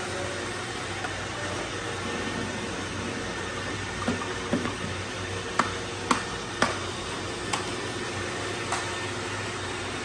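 Several robot vacuums running steadily on a tile floor strewn with water beads, with a string of sharp clicks and taps in the middle of the stretch as a vacuum's dustbin is emptied into a plastic tub.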